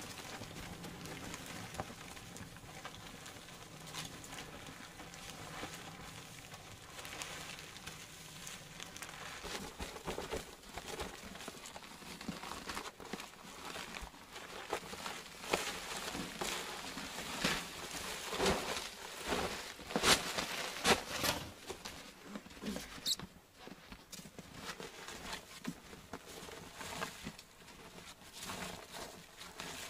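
Plastic sheeting and a tarp rustling and crinkling as they are handled, with scattered crunches and knocks that are busiest a little past halfway.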